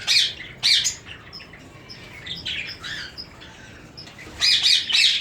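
A roomful of caged pet birds calling: loud, sharp high-pitched calls at the start and again just under a second in, softer scattered chirps through the middle, then a burst of loud calls near the end.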